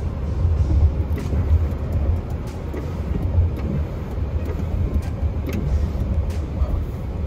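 Cabin noise inside a moving BMW X3: a steady low rumble of engine and road.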